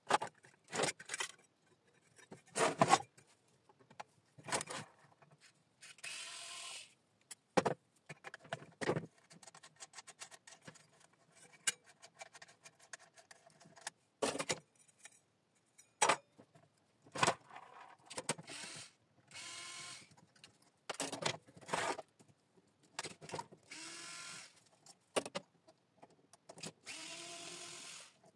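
Metal parts of a three-phase electricity meter clinking and knocking as it is taken apart by hand. Between the clicks come several short runs, about a second each, of a cordless screwdriver's motor driving out screws.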